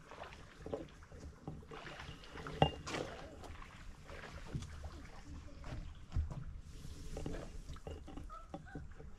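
Lake water lapping and sloshing gently, with scattered small knocks and one sharp knock about two and a half seconds in.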